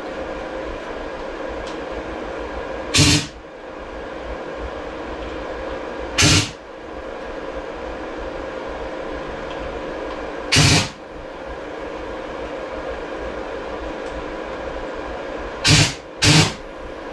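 Five short, loud bursts of noise from a tool in use on the motorcycle, each about a third of a second, at uneven intervals, the last two close together, over a steady background hum.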